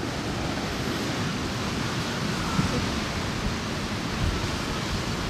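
Steady wash of ocean surf with wind gusting and rumbling on the microphone.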